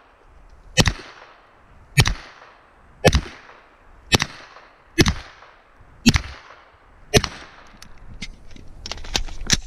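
Gunshots, seven in a steady string about one a second, each followed by a short echo. Lighter clicks follow near the end.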